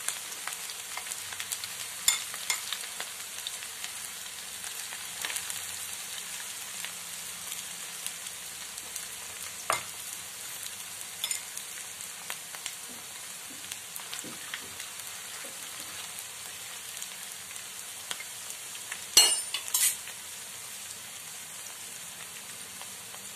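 Marinated chicken pieces frying in hot oil in a pan: a steady sizzle with scattered crackles, and two sharper clicks near the end.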